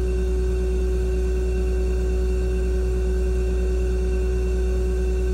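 Steady low hum with a constant higher tone over it, unchanging throughout.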